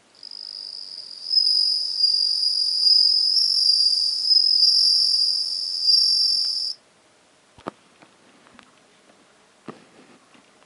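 Japanese bell cricket (suzumushi) singing a high, steady ringing trill. It comes in softly, grows louder about a second in, and cuts off suddenly after about seven seconds, followed by a few faint taps.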